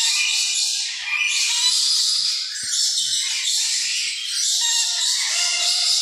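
Dense, continuous chorus of many caged birds chirping and chattering at once, high-pitched.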